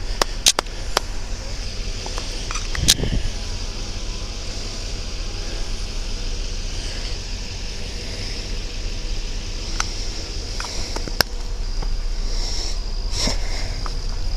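Handling and wind noise on a moving police camera: a steady low rumble with a faint high whine, broken by scattered sharp clicks and knocks, several in the first second and the loudest about three seconds in.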